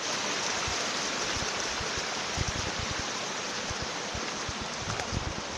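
Rushing water: a steady, even hiss with irregular low thumps underneath.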